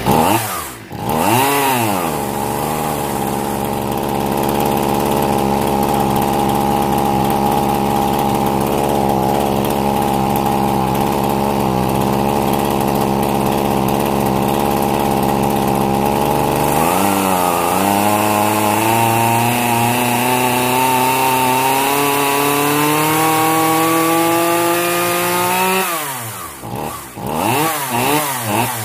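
Zenoah G3800 two-stroke chainsaw engine running after starting, at a mostly steady speed, with a brief dip and recovery at the start. About two-thirds of the way in the speed drops and then climbs steadily, and near the end it dips and surges several times. It is running too rich, because the carburettor mixture screws are turned out too far, as the mechanic says.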